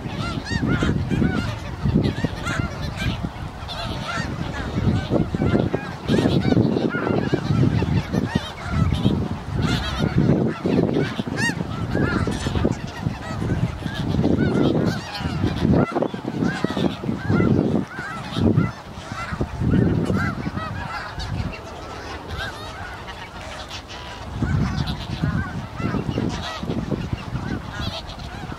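A large flock of snow geese calling constantly: many overlapping short, high honks and yelps from birds feeding together, over an uneven low rumble.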